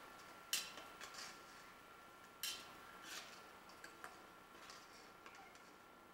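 Steel spoon clinking and tapping against a steel pan as fried gujiyas are lifted and turned: a string of light metallic clinks, about one a second.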